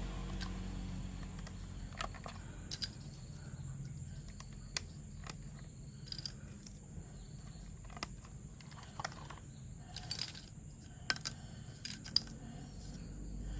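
Irregular light clicks and taps of plastic toy-train parts being handled and fitted together, over a low steady hum.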